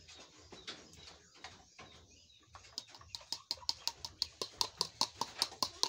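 Wire-mesh strainer shaken over a plastic basin while sifting wheat flour, at first a few faint taps, then from about two and a half seconds in a quick, even run of sharp clicks, about five a second.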